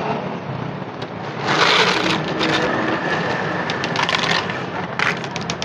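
Crackling and crinkling of thin plastic being handled as cat food is dispensed, in irregular bursts; the loudest comes about a second and a half in, with more around four and five seconds.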